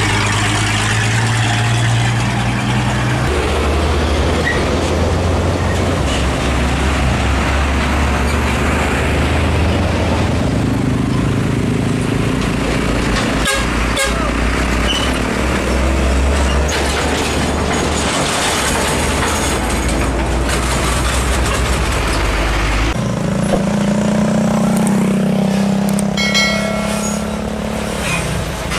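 Diesel engines of heavy trucks running loud and low as they drive past close by, first a Mitsubishi Fuso cargo truck, then Hino tractor units hauling long trailers, the engine note shifting as each truck goes by. A truck horn sounds briefly near the end.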